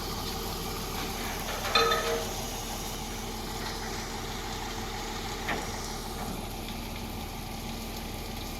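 Heavy machine's engine running steadily at idle, with a brief higher-pitched sound about two seconds in.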